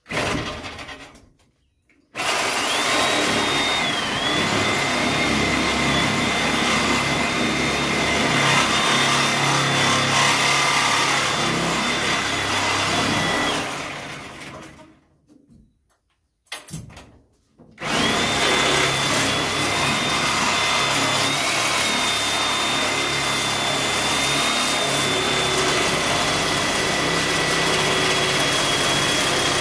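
Handheld power tool working on the truck's steel frame, running with a steady high whine whose pitch dips briefly as it bites. It runs briefly at the start, then for about twelve seconds, winds down, gives a short burst, and starts again for the rest.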